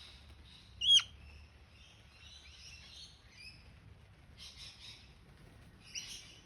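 Male Australian king parrot calling: one loud, sharp call that drops steeply in pitch about a second in, then softer chirps and short chattering notes, and another call near the end.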